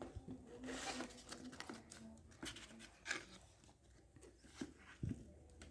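Packaging rustling and being torn open by hand, in short scratchy bursts with a few sharp clicks and taps.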